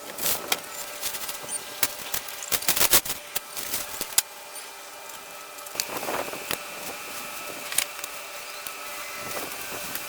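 Metal shovel digging into sandy soil: a quick run of scrapes and knocks, then a few more scoops near the end.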